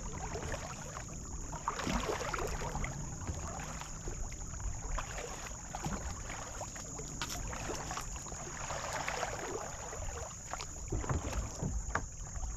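Kayak paddle strokes in calm river water: the blade dipping and pulling, with splashes and drips, picking up around two seconds in and again around nine seconds. A low wind rumble on the microphone runs underneath.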